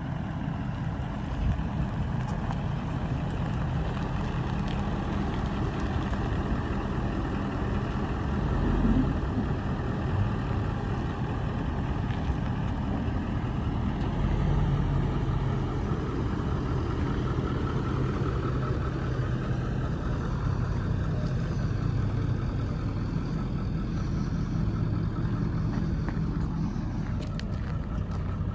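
Ford F-350 pickup's engine idling steadily, a continuous low hum.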